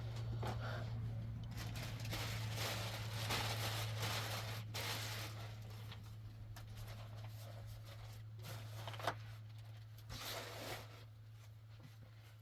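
Rustling and tearing noises of something being handled, in repeated bursts that thin out toward the end, over a steady low hum.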